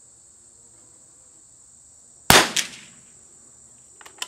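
A single .22 LR rifle shot from a CZ455 fitted with a Harrell muzzle tuner, a sharp crack about halfway through followed by a short echo. Insects chirr steadily throughout, and a few light clicks come near the end.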